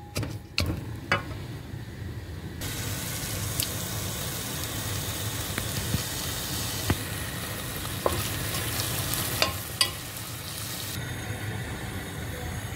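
Food sizzling in a pot as it is stirred, with a few spoon knocks against the pot at first and scattered spoon scrapes and clicks through the steady sizzle.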